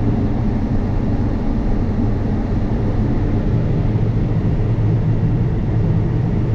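Combine harvester running steadily while harvesting corn: a loud, even low drone of engine and threshing machinery.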